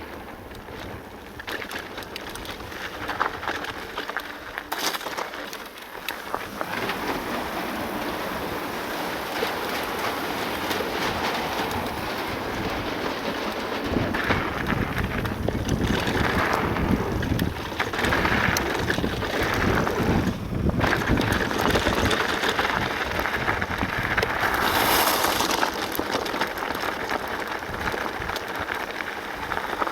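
Full-suspension e-mountain bike riding over a gravel trail: a continuous rush of tyre noise with the bike's parts rattling and clicking, and wind buffeting the microphone.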